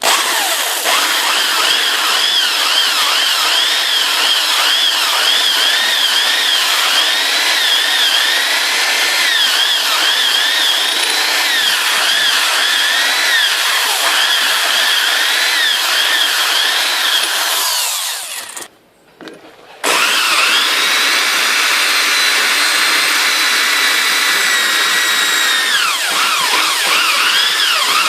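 Electric drill running under load, boring mounting holes through a motorcycle luggage rack with a dull bit; the motor's whine wavers as the bit bites. It stops for about a second two-thirds of the way through, then runs again until just before the end.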